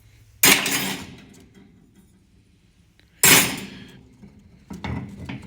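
Two sharp metal clanks about three seconds apart, each ringing briefly, then a few lighter clinks near the end: transmission clutch parts being struck, with friction plates stuck on the clutch hub.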